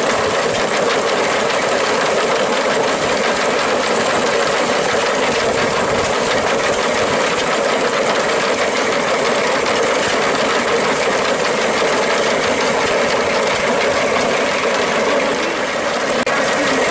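Antique wooden threshing machine (grain separator) running steadily while sheaves are fed into it: a dense, even rattle of moving parts with fine rapid ticking. The sound dips briefly near the end.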